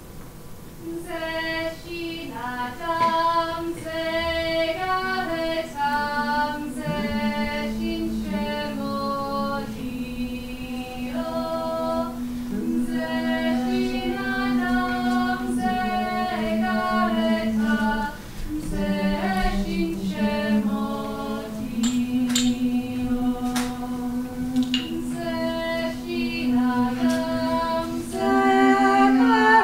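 A small group of voices singing a Georgian polyphonic song without instruments. The upper parts move in short phrases over a long held drone note, and the singing starts about a second in.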